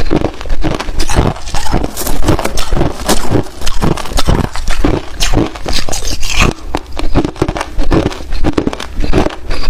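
Hard clear ice being chewed close to the microphone: a steady run of loud, sharp crunches, several a second.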